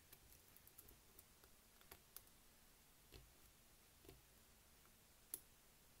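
Faint, irregular clicks of a steel lock pick working the pin tumblers of an old-style Federal Super padlock, with a tension wrench in the keyway. The loudest click comes about five seconds in.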